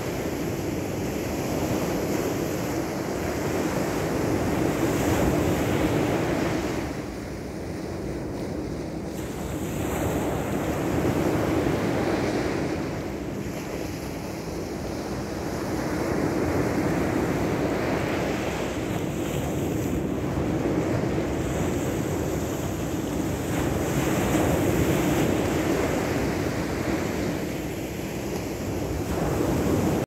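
Sea surf washing onto a sandy beach, swelling and fading every few seconds, with wind rumbling on the microphone.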